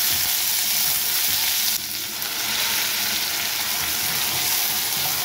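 Onions, green capsicum and carrot frying in hot oil in a pot, a steady sizzle, stirred with a spatula.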